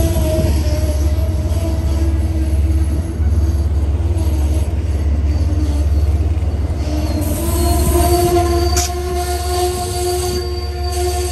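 Amtrak passenger train's stainless-steel coaches rolling past close by: a heavy steady rumble with sustained ringing tones that fade a second or two in and return strongly about seven seconds in, and a single sharp click near nine seconds in.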